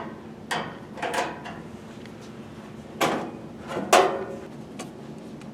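Finger guard being fitted and locked into place on a boiler: four short knocks and scrapes of a cover against the casing, the loudest about four seconds in.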